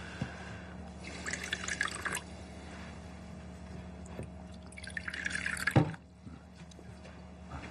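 Liquid poured from a metal pot into cups in two short pours, the second ending in a sharp knock.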